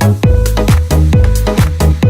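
Loud electronic dance music with a heavy bass line and about four beats a second; the bass notes slide down in pitch on the beat. It is played at high volume over a sound system.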